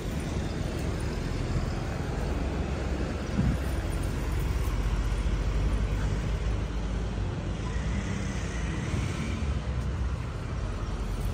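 Steady outdoor street ambience: a low traffic rumble and hiss from road vehicles, swelling slightly midway.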